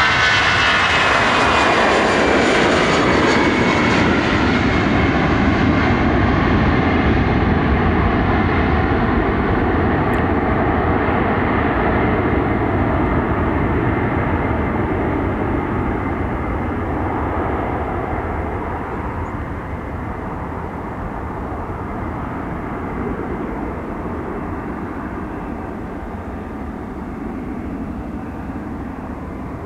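Airbus A318's twin jet engines at takeoff power as it lifts off and climbs away: a loud jet roar whose high whining tones slide down in pitch over the first few seconds. It then settles into a broad rumble that slowly fades as the aircraft recedes.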